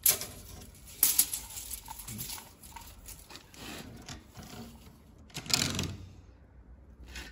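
Electric wood-cutting saw cutting wooden panelling boards, the cutting noise rising and falling, loudest about a second in and again about five and a half seconds in.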